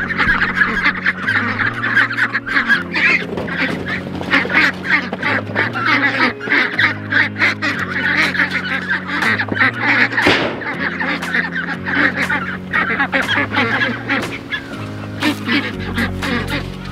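A flock of Pekin ducks quacking, many short calls overlapping, over background music whose low notes change every second or two.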